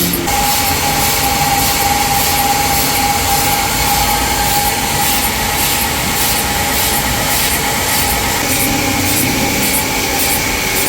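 Sawmill cutting through a walnut log: a steady high whine over loud continuous machine noise, with the whine changing about eight seconds in.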